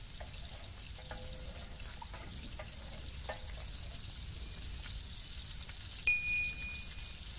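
A metal lid strikes the rim of a metal cooking pot about six seconds in, a single clang that rings for about a second. Before it, a few faint ticks and crackles sit over a steady hiss from the wood fire under the pot.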